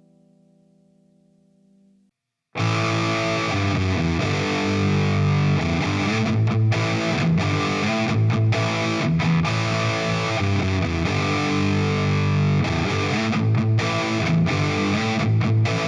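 Electric guitar played through a Playwell Tank-G multi-effects unit on its preset 9B, a distorted tone, riffing with frequent short stops between chords. It starts about two and a half seconds in, after the faint last chord of the previous preset has died away, and cuts off near the end.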